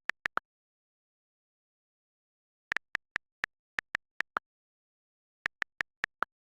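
iPhone on-screen keyboard key clicks while typing: three quick taps, a pause of about two seconds, then two runs of rapid taps at about six clicks a second, with dead silence between them.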